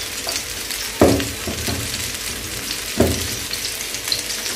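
Masala-coated fish pieces sizzling as they shallow-fry in oil in a pan, with a steady crackle. Two dull knocks come about two seconds apart.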